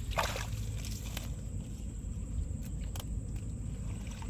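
A steady low rumble with a few light clicks and rustles as a bamboo fish trap and its slatted bamboo panels are handled in wet grass.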